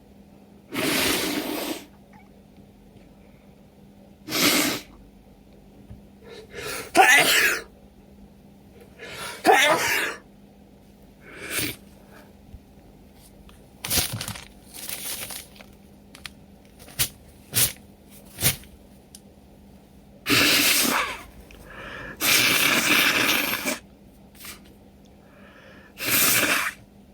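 A person with a head cold sneezing again and again in a fit, with sniffs between the sneezes: about a dozen loud bursts, a few of them drawn out to a second or more.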